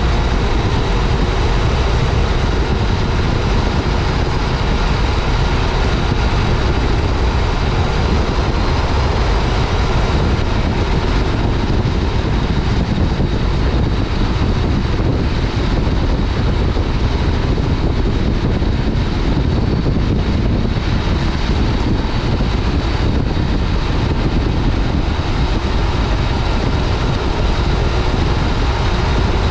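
Wind rushing over a helmet-mounted microphone, with the 2015 Yamaha FJ-09 Tracer's three-cylinder engine running underneath at a steady cruise.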